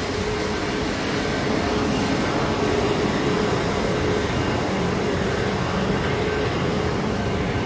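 Steady street noise: a constant rumble with a faint steady hum running through it.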